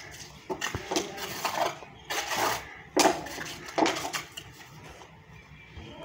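Mason's hand trowel scraping and smoothing wet cement, in several separate strokes, with the sharpest metallic scrapes about three seconds in.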